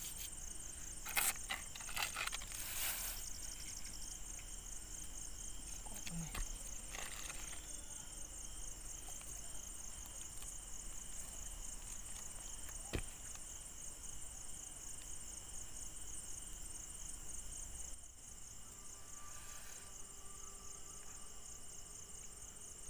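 Crickets trilling steadily, a high even chorus of night insects, with a few brief rustles and clicks in the first few seconds.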